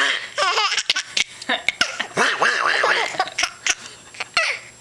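Eight-month-old baby laughing in repeated bursts, with a few short clicks about a second in.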